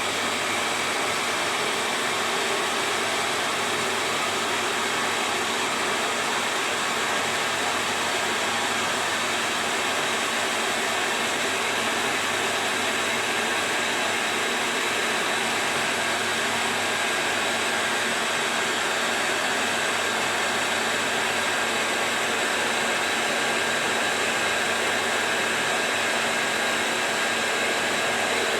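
Hair dryer blowing steadily, heating a plastic bottle sleeve to shrink it onto a juicer part.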